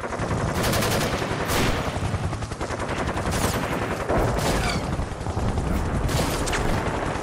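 Continuous rapid automatic gunfire, many shots overlapping, with a few short falling whistles.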